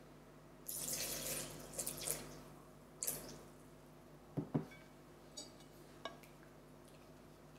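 Milk pouring into a glass bowl of thick matcha crêpe batter: a steady pour of about a second and a half, then a shorter splash. Two sharp knocks come about four and a half seconds in, then a few light clicks as the whisk starts to mix.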